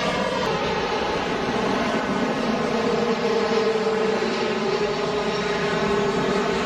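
Airbus A321neo jet airliner on final approach with gear down, passing low and close. Its Pratt & Whitney geared turbofans give a steady loud rush with a whining hum, the tones dropping slightly in pitch as it goes by.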